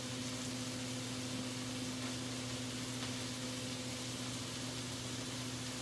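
Microwave oven running with a steady low electrical hum and hiss as it cooks rice in a steamer.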